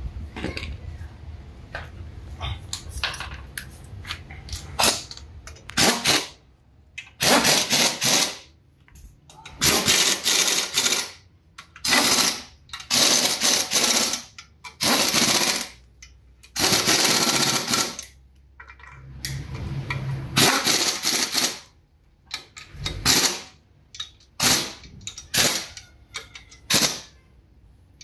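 Hand ratchet wrench clicking fast in repeated bursts of about a second each, with short gaps between them, as the bolts holding a clutch pressure plate to the flywheel are turned. Scattered single clicks and knocks come before the bursts begin.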